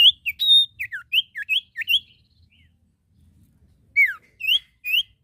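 An iora (cipoh) singing loud, clear whistled notes that alternately slide down and up. A quick run of about ten notes is followed by a pause of about two seconds, then three more notes near the end.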